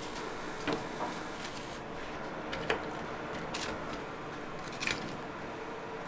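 A few light clicks and taps of metal kitchen tongs over a steady kitchen hiss with a faint hum.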